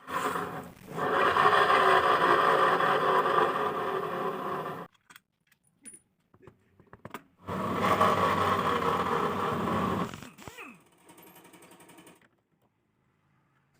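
Honda Vario scooter's CVT drive growling with a rough rumble as the rear wheel is spun, twice: a first spin of about five seconds that cuts off sharply, a few clicks, then a second spin that fades into a fainter rattle. The growl is the abnormal noise being diagnosed in the scooter's CVT.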